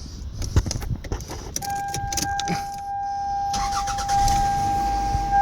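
Toyota Camry started after a fresh oil change: keys rattle and click in the ignition, a steady electronic tone sounds, and about three and a half seconds in the engine cranks and catches, the running sound rising under the tone.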